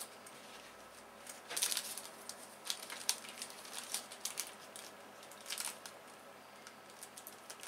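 Crinkling and rustling as a small adhesive phone stand and its wrapping are handled and bent, in short scattered bursts, the loudest about two seconds in.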